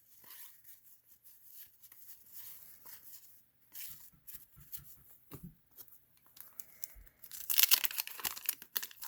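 Wax-paper wrapper of a 1990 Fleer basketball card pack being torn open and crinkled. It is loudest over the last second and a half, after faint rustling of cards being handled.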